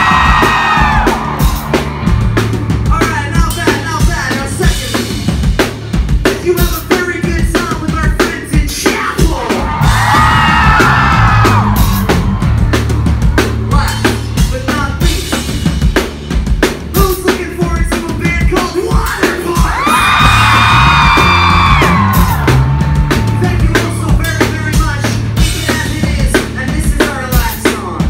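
Pop-punk band playing live and loud: a fast, busy drum kit over steady low bass, with the singer's sung lines coming in three times, about ten seconds apart.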